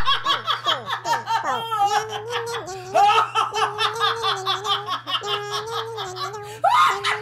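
A woman's loud, prolonged belly laughter in rapid high-pitched pulses. She catches her breath twice and then bursts out again.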